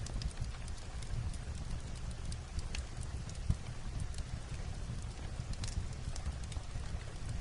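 Fireplace crackling mixed with light rain on a roof: scattered sharp pops and ticks over a steady low rumble, with one louder knock about three and a half seconds in.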